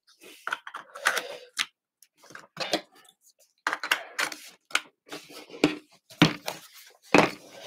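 Irregular clicks, taps and knocks of a Framework laptop being handled as parts are pushed back into it, with a few louder knocks in the second half.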